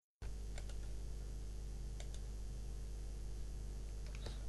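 Steady microphone hiss with a low electrical hum, switching on abruptly a moment in, with a few faint clicks scattered through it: about half a second in, twice around two seconds, and near the end.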